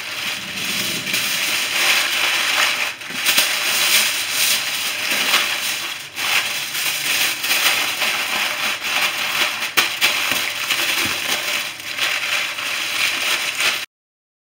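Aluminium foil being crumpled and wrapped by hand: continuous crinkling and crackling with brief pauses, cutting off suddenly near the end.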